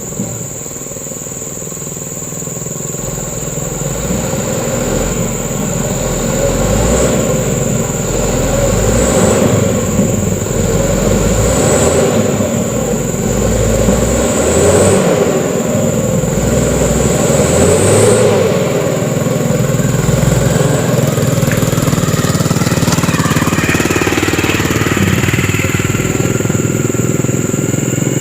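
Mitsubishi Canter truck's diesel engine running hard under load, getting louder over the first few seconds. Near the end a rising whine comes in.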